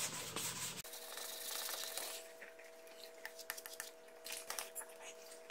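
Hand block-sanding of primer with 400-grit paper, a dry rasping rub that cuts off abruptly about a second in. After that comes a faint steady hum with scattered light ticks.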